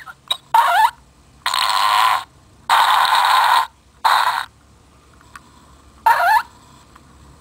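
Recorded fart sounds played by a novelty fart-sound keychain: about six separate blasts of different lengths with short pauses between, two of them ending in a rising squeal.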